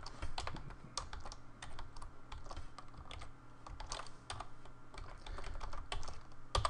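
Typing on a computer keyboard: irregular keystrokes while code is edited, with one louder key click near the end.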